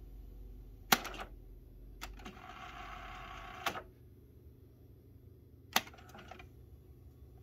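Nakamichi 480 cassette deck's transport keys clicking as they are pressed, with a steady whirr of tape winding at speed for about a second and a half between two of the clicks. Near the end another key click is followed by a few small clunks of the mechanism engaging.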